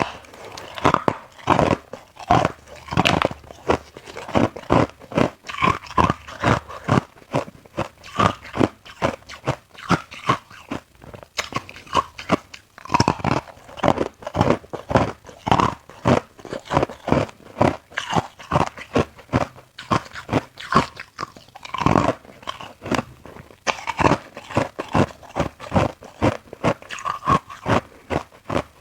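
A person crunching and chewing ice close to the microphone: a dense run of sharp, crisp crunches, several a second.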